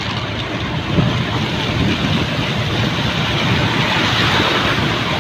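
Steady rushing and splashing of floodwater churned up by a vehicle riding through a flooded street, a little louder near the end.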